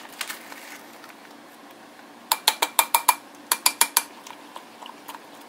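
Metal measuring spoon clinking against a glass mason jar, a quick run of about a dozen sharp, ringing clinks from about two to four seconds in, with a few fainter taps after.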